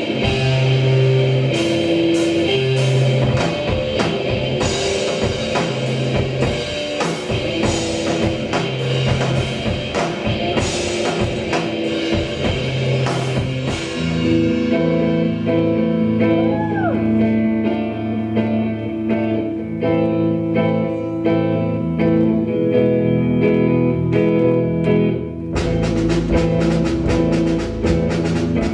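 Rock music from a live band: drum kit and electric guitars playing. The music changes abruptly to a different song about halfway through and again near the end.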